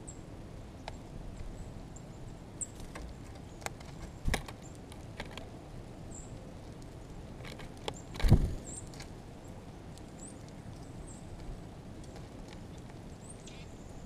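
Downy woodpecker pecking at seed on a window feeder tray: scattered sharp taps and knocks, the loudest a little past halfway. Faint short high bird chips come and go behind them.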